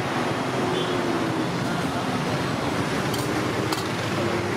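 Steady roadside traffic noise with background voices. About three seconds in there are two sharp clinks, like steel serving ladles against the steel food containers.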